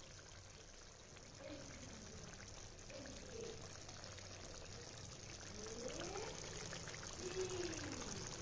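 Thick chicken gravy simmering in an open pan, bubbling steadily with many small pops.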